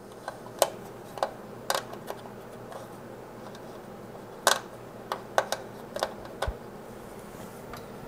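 Light clicks and taps from hands fitting an M.2 SSD into its motherboard slot, about a dozen at irregular intervals, the loudest about four and a half seconds in.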